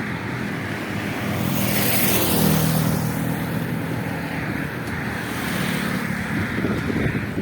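Wind rushing over the microphone while riding a bicycle along a road. A motor vehicle's hum swells and fades about two to three seconds in, and the rush swells again near six seconds.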